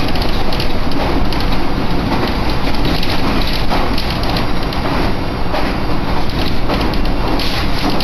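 Cabin noise of a moving electric commuter train: a steady rushing rumble of wheels on rail, with a scatter of small rattles and knocks.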